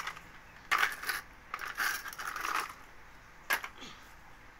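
Gritty scraping and crunching of sand and small stones on concrete, in a few short bursts, as a plastic toy truck is pushed through the dirt and a child's hand sweeps it, with one sharp click about three and a half seconds in.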